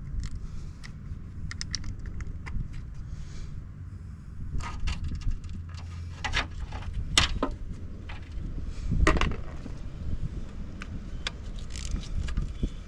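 Metal hand tools clinking and scraping while exhaust manifold bolts are worked loose on a Chevy 5.3 V8, scattered sharp clicks over a low rumble, the loudest about seven and nine seconds in.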